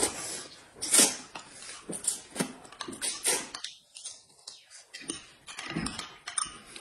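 Eating at a table: irregular short smacks and crunches of chewing, with clinks of utensils on dishes.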